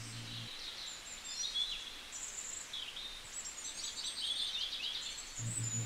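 Small birds chirping and twittering in several short runs of high, quick notes over faint background noise.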